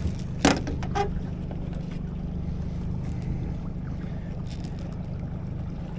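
Boat motor running steadily at trolling speed, a constant low hum. There is a brief sharp sound about half a second in.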